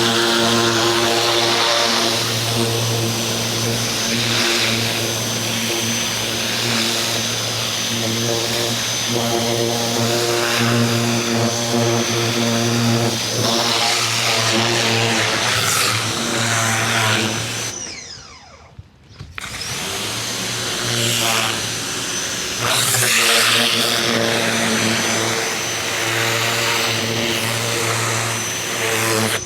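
Ryobi 2000 PSI electric pressure washer running, its motor humming steadily under the hiss of the water jet. About 18 seconds in, the trigger is let go and the motor and spray stop for about a second and a half, then start again.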